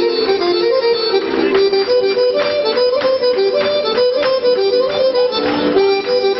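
Fast Serbian folk dance music for a kolo, an accordion playing a quick running melody of short notes over a steady beat about twice a second.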